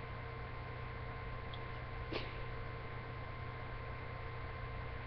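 Steady electrical hum and hiss picked up by a webcam microphone, with a few steady tones held over it; one faint short sound about two seconds in.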